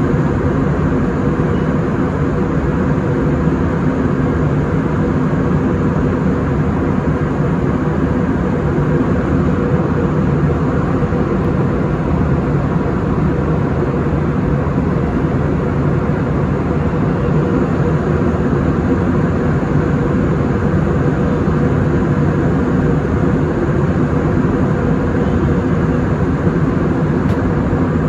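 Aircraft landing: a steady, loud drone of engine noise and rushing air with a faint steady hum inside it.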